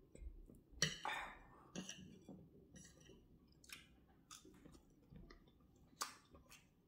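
Close-up mouth sounds of chewing soft gari, beans and fried plantain, with a few sharp clicks of a metal fork against a ceramic plate, the loudest about a second in and near the end.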